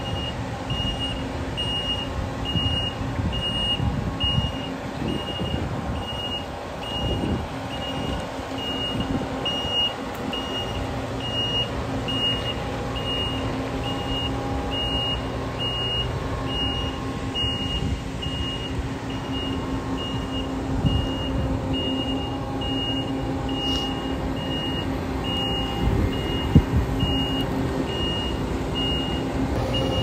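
Claas Lexion combine harvester manoeuvring in reverse: its engine running with a steady hum while its reversing alarm beeps steadily and repeatedly.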